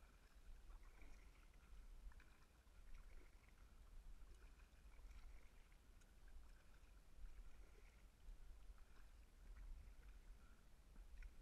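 Faint, muffled water sounds of a kayak paddle dipping and dripping on alternate sides as it strokes through calm water, heard through a camera's sealed waterproof housing.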